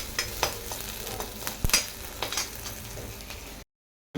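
Onion, dried red chilli and garlic sizzling in hot oil for a dal tempering, with a utensil clicking and scraping in the pan as it is stirred. The sound cuts off abruptly near the end.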